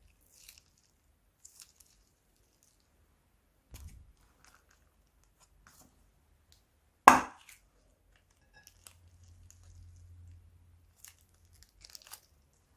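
Slime being handled: faint scattered crinkling, ticking and scraping, with one loud sharp smack about seven seconds in that dies away quickly.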